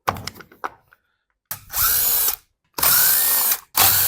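Cordless power driver spinning out the screws of a Stihl MS390 chainsaw's starter cover: a few handling clicks, then three runs of the motor, each under a second long, its whine rising as each one starts.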